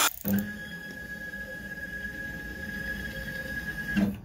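Router spindle noise cuts off abruptly at the start; then the LongMill CNC's stepper motors move the gantry clear of the work, a steady faint high whine over a low hum, with a short louder burst as the move starts and again near the end.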